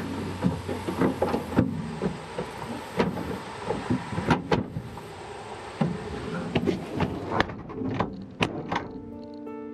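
Irregular knocks, clacks and thumps of gear handled in a pickup truck bed: plastic storage boxes moved about and the tailgate shut. Music comes in near the end.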